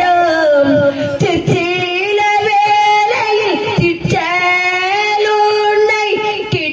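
An older woman singing a Tamil song into a handheld microphone, her high voice holding long notes with slides between pitches.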